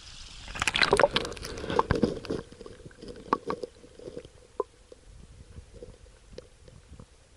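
Water sloshing and splashing for about two seconds as something is plunged into a stream, then scattered soft clicks and taps.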